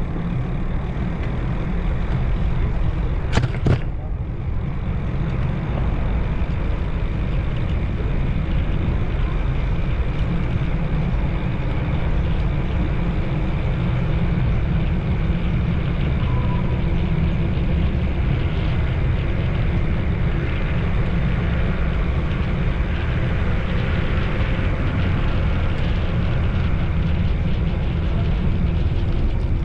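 Steady low rumble of a moving road vehicle, with two sharp clicks about three seconds in.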